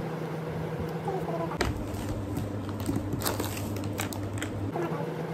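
A small plastic-foil snack sachet being handled, crinkling, with a few sharp crackles in the middle, over a steady low hum.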